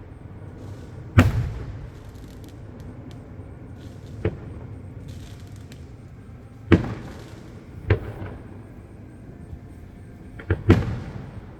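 Aerial fireworks shells bursting in the sky: about six sharp booms, each followed by a rolling rumble, with the loudest about a second in and near the end, and faint crackling between them.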